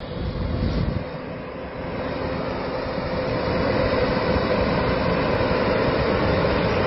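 Heavy-transport vehicle diesel engines running steadily with a low rumble and a faint droning whine, growing louder.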